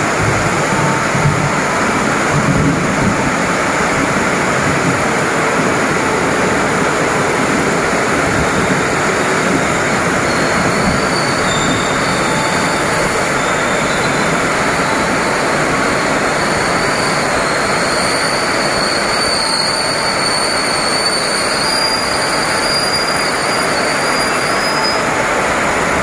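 KRL commuter electric train running in alongside the platform in heavy rain, over the steady hiss of the downpour. From about ten seconds in, a thin high-pitched squeal from the wheels comes and goes as the train slows.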